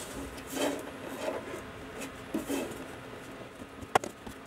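Plastic case of an Agilent 34405A bench multimeter being handled and turned over by hand on a bench mat: soft rubbing and scraping, with a sharp click about four seconds in.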